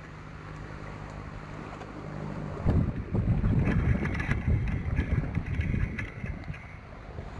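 Wind gusting across the microphone as a rough low rumble that sets in about a third of the way through, over a steady low hum at the start.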